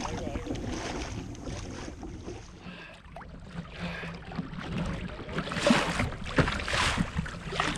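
Wind buffeting the microphone and water washing along a fishing kayak's hull as a hooked bluefin tuna tows it. The hissing wash grows louder about five and a half seconds in, then eases again.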